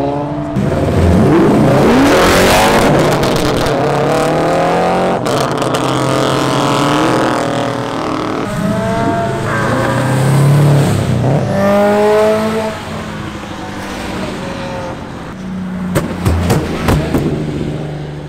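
Cars pulling away hard one after another on a wet road, each engine revving up in rising sweeps as it passes. A quick run of sharp cracks comes near the end.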